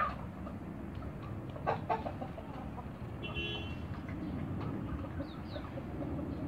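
Chickens clucking in the background, with one short, higher pitched call about three and a half seconds in, over a steady low outdoor rumble. A sharp knock at the start and a few more about two seconds in.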